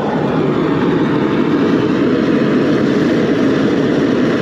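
High-pressure propane burner under a crawfish boil pot, running with a loud, steady rushing noise as it heats the water.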